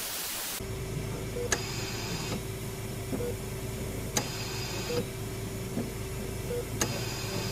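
A brief burst of TV static hiss, then intensive-care room sounds: a steady electrical hum, short beeps from patient monitors, and a machine that clicks and hisses about every two and a half seconds.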